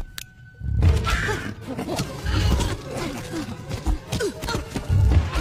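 Dramatic orchestral film score swelling in about a second in, with heavy low thumps and impact hits as the grasshopper villain attacks the ant.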